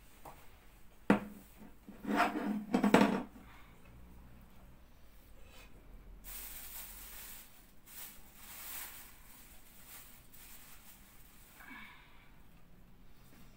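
Kitchen handling sounds: a click, then a second or so of a bowl knocking and scraping as dough is worked out of it, followed by a softer rustling hiss.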